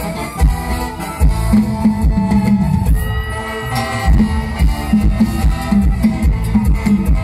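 Loud live stage-show music over the PA from a Thai mor lam troupe's band, with sustained instrument notes over a steady drum beat.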